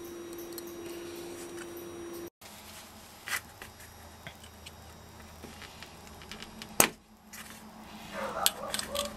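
Scattered small clicks and taps of hand tools, a hobby knife and needle-nose pliers, on the steel can and cap of a vented 18650 lithium-ion cell, with one sharper click about two-thirds of the way through and a few more near the end. A faint steady hum in the first two seconds cuts off abruptly.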